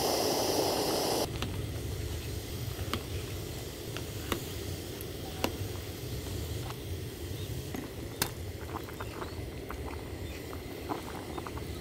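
A pot of kimchi stew boiling on a camping gas burner, a steady hiss that drops away about a second in. Then quieter bubbling with scattered light clicks and taps as tofu is cut in its plastic tray with a small cleaver and pushed into the pot with a wooden spoon, the taps bunching up near the end.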